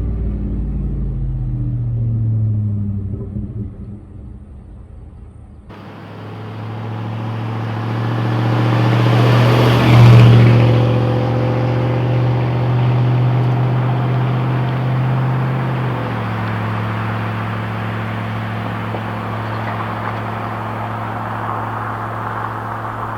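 A 5.3-litre LM7 V8 truck exhaust through a single-chamber performance muffler. The engine eases off at first, then after an abrupt change swells to its loudest about ten seconds in. It then settles into a steady low exhaust tone.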